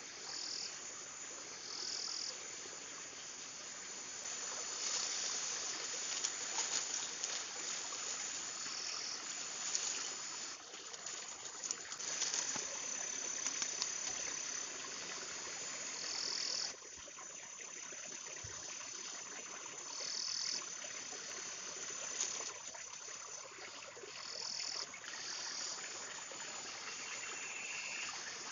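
Forest ambience: insects calling over and over in short high bursts, with a few longer steady shrill tones, over the steady hiss of flowing water. Scattered rustles and clicks come from dry plant strips being handled.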